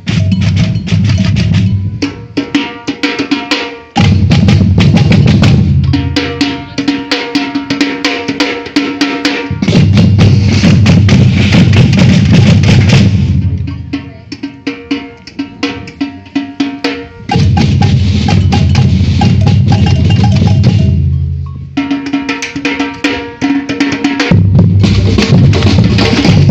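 Batucada street percussion band playing: deep bass drums, snares and wood-block-like percussion in a driving groove. The deep drums drop out several times, leaving the lighter drums and percussion, then come back in full.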